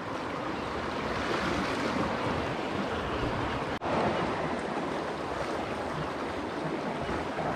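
Sea waves washing steadily against shoreline rocks, a continuous surf hiss that drops out for an instant about four seconds in.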